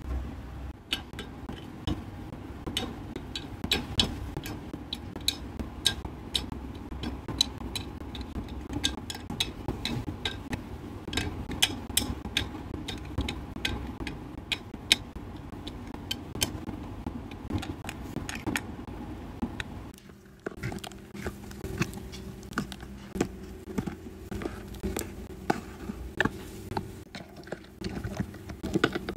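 Small plastic clicks and taps, irregular and frequent, as miniature doll shoes are set onto a clear acrylic shoe rack and small toy accessories are hung on pegboard pegs, over a low steady background hum.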